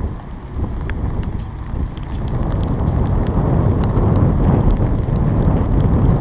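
Wind noise on the microphone of a camera on the open deck of a moving boat, growing louder about two seconds in, with scattered light ticks of rain striking the camera.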